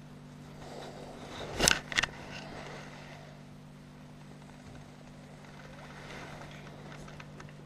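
Two sharp knocks in quick succession about a second and a half in, over a steady low hum.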